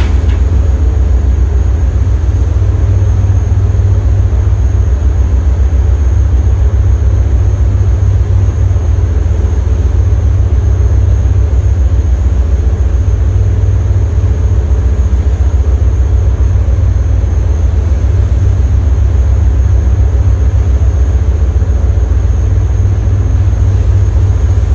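Boat engine running steadily at a constant speed: a loud, even, deep drone.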